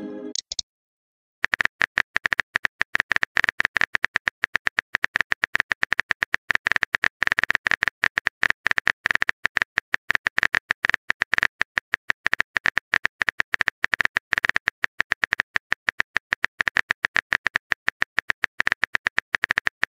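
Rapid, uneven clicking of a phone keyboard typing sound effect, keystroke after keystroke as a text message is typed out. It starts about a second and a half in and keeps on without a break.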